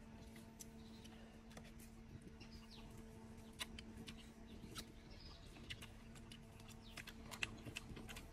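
Quiet outdoor ambience with scattered faint clicks and taps, a few faint high chirps, and a steady low hum underneath.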